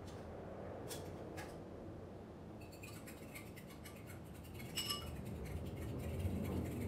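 Eggs being whisked with a metal utensil in a ceramic bowl, the utensil clinking rapidly against the bowl's side, with the loudest clinks near the end. About a second in, two sharp taps come first.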